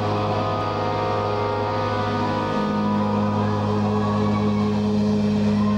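Heavy metal band playing live: distorted electric guitars and bass hold sustained low notes that ring on, the notes changing a little past halfway through.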